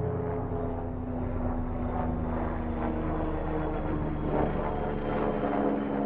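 Helicopter flying overhead, its engine and rotors droning steadily.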